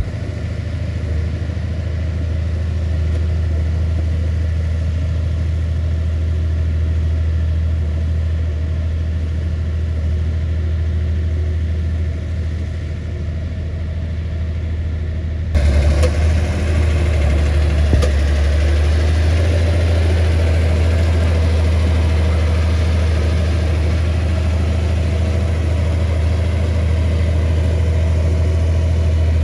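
Komatsu bulldozer's diesel engine running steadily with a deep drone. About halfway through, the sound turns suddenly fuller and brighter, and a single sharp knock follows soon after.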